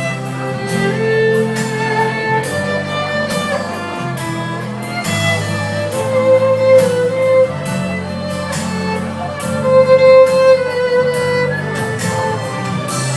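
Instrumental music: a held melody line over changing bass notes, with a regular beat.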